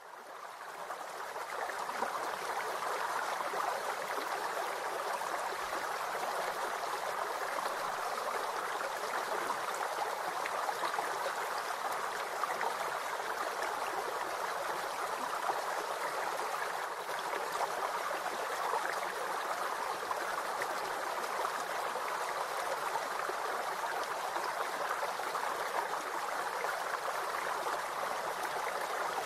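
Steady rushing noise like a flowing stream, fading in over the first couple of seconds and then holding unchanged across the picture cuts: a background water ambience rather than sounds of the cooking.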